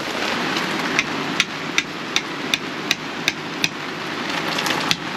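Mallet driving an awning peg into wet ground: a run of about eight sharp strikes, roughly three a second, with one more near the end, over steady rain.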